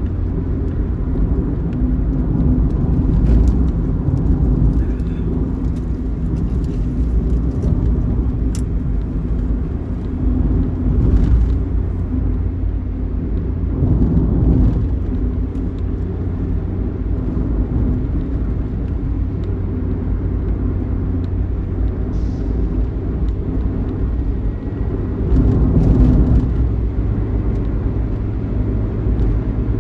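Diesel engine of an intercity bus running steadily under way, with road noise; it swells briefly a few times.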